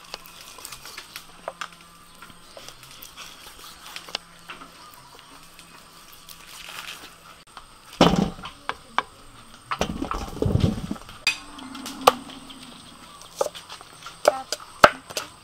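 Faint taps of a knife slicing raw beef on a wooden cutting board. About eight seconds in, a loud clatter as meatballs are tipped onto a metal tray, with more jumbling a couple of seconds later. Then scattered sharp taps of knives chopping on boards.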